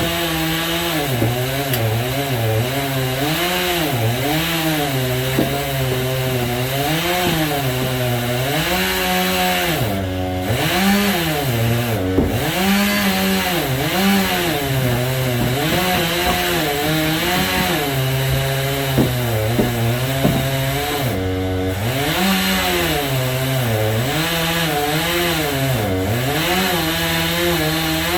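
Chainsaw in a homemade chainsaw mill ripping lengthwise through a walnut log, running on a crosscut chain that is not made for ripping. The engine speed keeps rising and falling under the load of the cut, with brief drops about a third of the way in and again about three quarters through.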